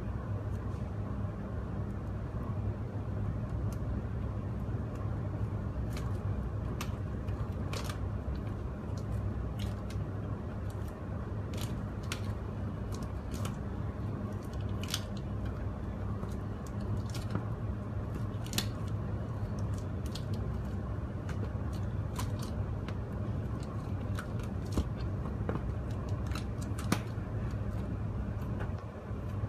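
Clear plastic bubble balloon being handled at its neck, its thin film giving off scattered small crackles and clicks. A steady low hum runs underneath.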